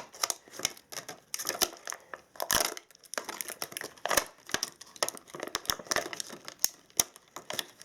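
Laptop battery pack being pried and pulled apart by hand: the plastic casing and wrapping crack, crinkle and tear in a run of irregular snaps and crackles.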